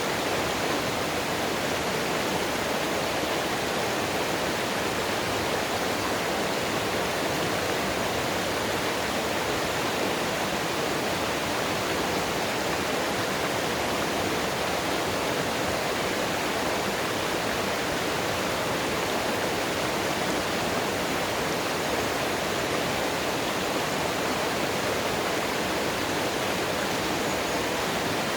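Mountain stream water rushing and splashing over rocks, a steady unbroken rush.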